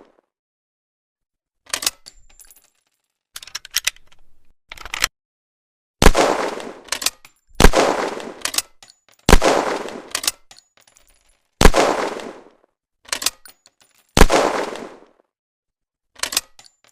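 Schofield gun firing five loud shots, each with a long echoing tail, about two seconds apart. Short runs of metallic clicks from the gun's action come first and fall between the later shots.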